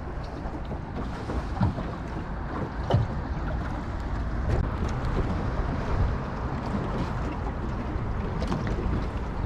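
Small fishing boat's motor running steadily at slow trolling speed, with wind and water noise over it and a few light knocks.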